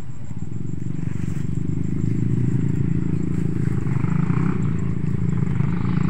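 A motor vehicle's engine running with a low, steady rumble, growing a little louder over the first two seconds.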